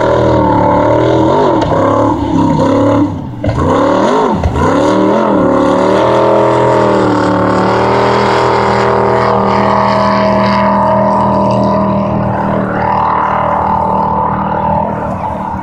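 Racing jet boat's engine running at high revs, its pitch dropping sharply and climbing back a few times in the first few seconds as the throttle comes off and on, then held steady and high.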